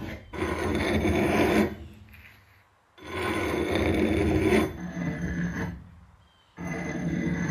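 Hand file rasping across the edge of a steel axe head clamped in a vise: three long strokes, each a second or more, with short pauses between.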